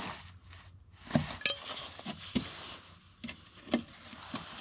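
A handful of light, separate clicks and taps as a bolt is handled and fitted into a car's underbody plastic cover by hand.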